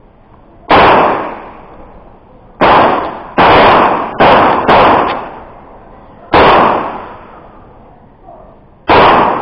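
Seven pistol shots fired at an uneven pace, two of them in quick succession about four seconds in, each followed by a short echoing decay.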